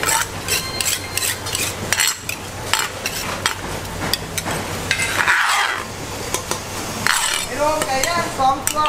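A kitchen knife tapping and scraping as ingredients are cut and worked in a large wooden mortar, heard as a quick, uneven series of clicks and knocks.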